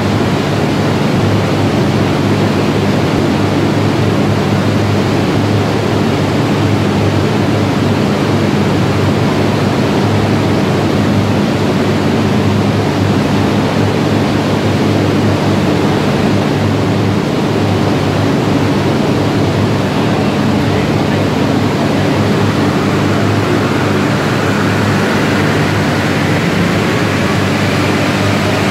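Chassis dynamometer session on a BAIC BJ20 1.5 turbo: a loud, steady rushing noise with a low hum, the dyno's cooling fan blowing with the car running on the rollers. A faint rising whine comes in about three-quarters of the way through.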